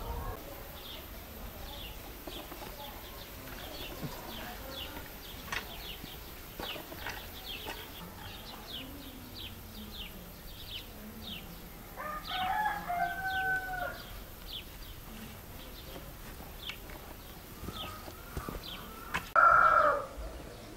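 A rooster crowing once about midway, a drawn-out call of about two seconds, over steady high chirping of small birds. Near the end comes a short, louder call.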